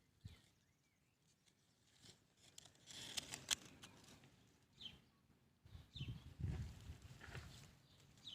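Faint scratching, scraping and tapping of a pet turtle's claws and shell moving over a surface, with a cluster of sharp clicks about three seconds in and duller rustling bumps about six seconds in.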